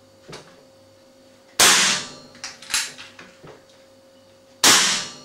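Webley FX2000 .177 PCP air rifle firing two unsilenced shots about three seconds apart, each a sharp crack with a short fading tail. Lighter clicks come between the shots.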